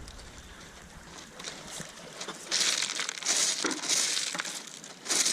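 Beach pebbles crunching and grinding underfoot or under hand, in a series of short crunches from about halfway through.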